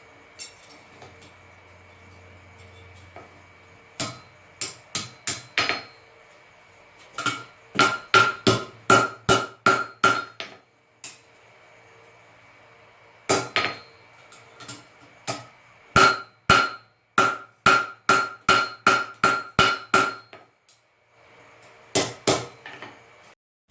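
Blacksmith's hammer striking steel on an anvil in runs of blows about two a second, with pauses between runs; each blow leaves a clear ringing tone from the anvil.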